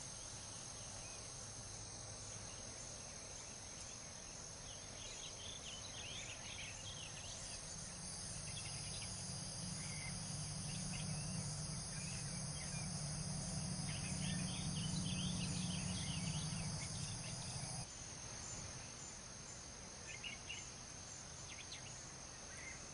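Crickets chirring steadily in the night air. A low machine hum with a faint whine swells in about a third of the way through, is the loudest sound for about ten seconds, then cuts off suddenly.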